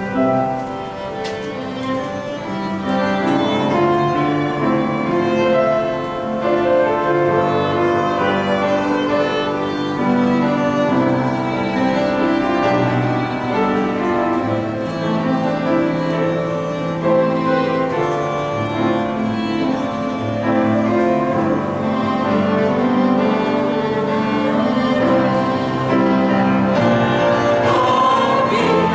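Violin and wooden side-blown flute playing a melody together in long, held notes.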